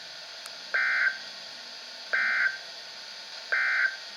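Emergency Alert System end-of-message (NNNN) data tones on NOAA Weather Radio: three short, harsh digital buzzes about a second apart, signalling that the flash flood warning is over.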